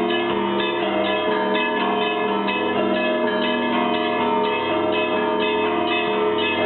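Russian Orthodox monastery bells ringing a peal. Several bells of different pitches are struck in quick succession, their tones overlapping in a continuous ring.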